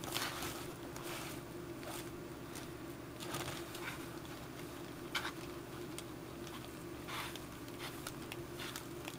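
A plastic bag crinkling over a hand while a dye-soaked sponge is rubbed in irregular strokes across a piece of leather, as oil dye is wiped on. A faint steady hum sits underneath.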